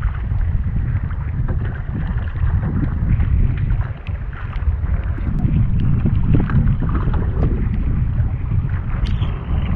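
Wind buffeting the microphone on a small outrigger boat at sea, with choppy water sloshing against the hull and a few light knocks.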